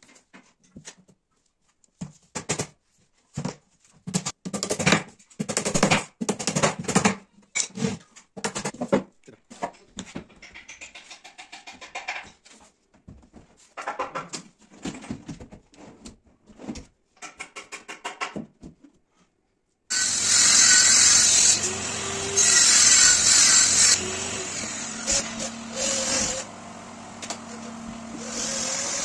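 Scattered knocks and clicks of a melamine drawer box being handled and fitted onto metal drawer slides, in short clips with silent gaps. About two-thirds through, a cordless drill starts: two loud bursts of about a second and a half each, then steadier, quieter running.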